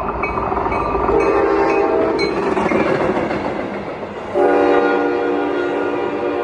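Passenger train rushing past close by, its wheels and cars rumbling, with the locomotive's multi-note horn sounding: a shorter blast about a second in and a louder, longer blast starting about four and a half seconds in.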